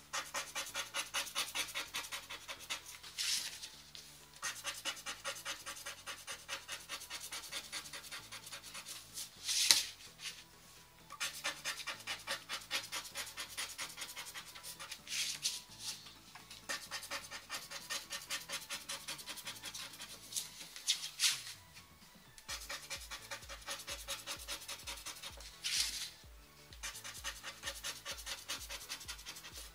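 Lottery scratch cards being scratched off in quick, even strokes, about four or five a second, with a louder scrape every five or six seconds, over background music.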